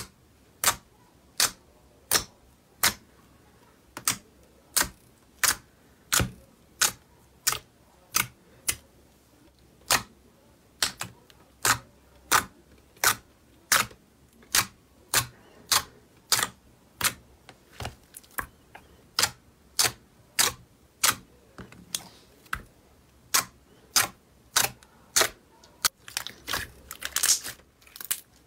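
Clear slime being pressed and poked with fingertips in a plastic tray, giving sharp clicks about two a second. Near the end the clicks crowd into a denser crackle.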